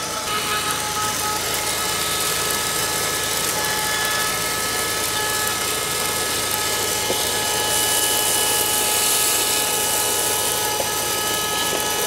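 Shinexpro wired 12-volt car vacuum cleaner running steadily while sucking up dirt through its nozzle: rushing air with a steady motor whine of several high tones, the hiss growing a little brighter about eight seconds in.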